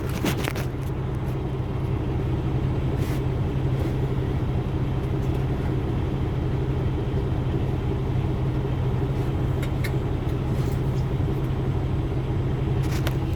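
Steady low rumble of an idling engine, with a few short clicks and knocks as the fridge is worked out of its cabinet.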